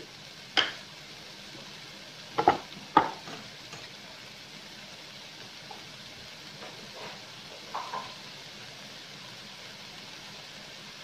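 Minced chicken and potato filling frying in a wok with a steady low sizzle. A few sharp clinks or knocks break in, about half a second in, twice around two and a half to three seconds, and once near eight seconds.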